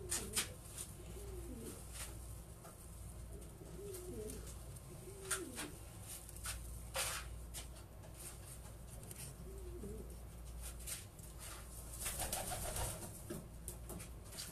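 Racing pigeons cooing in their loft: several low, warbling coos, with scattered sharp clicks between them.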